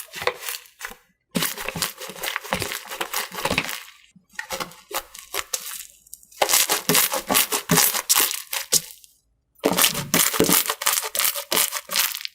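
Slime being squeezed and pressed by hand, giving a dense crackle of many small sharp clicks and pops. It comes in four bursts, each a couple of seconds long, broken by short silences.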